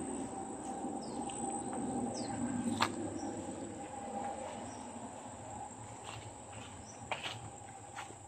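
Farm-field ambience: a steady high-pitched insect drone with several short falling bird chirps, and a few rustles and footsteps of someone walking through bitter gourd vines.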